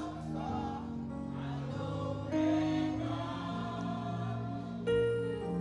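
Gospel worship music: a choir and congregation singing a slow response, with steady held notes underneath.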